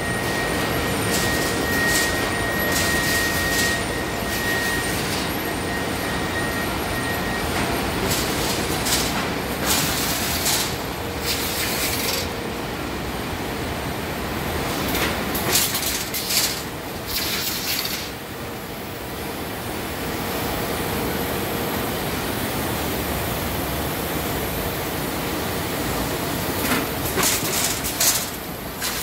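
Packing-line conveyors running with a steady mechanical noise, broken several times by short bursts of rattling and clattering. A faint high whine sounds over the first several seconds.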